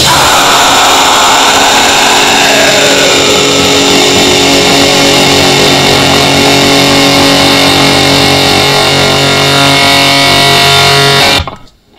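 The final distorted guitar chord of a raw black metal song left ringing after the drums stop, with a falling glide in pitch over the first few seconds. It cuts off abruptly near the end, leaving a faint hiss.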